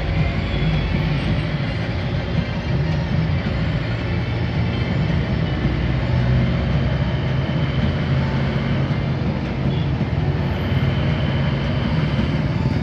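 Steady engine drone and road noise from inside a moving vehicle cruising in traffic.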